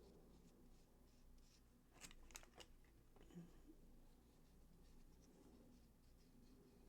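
Near silence: low room hum, with a few faint quick ticks and scratches about two seconds in, the small sounds of hands working on a craft piece.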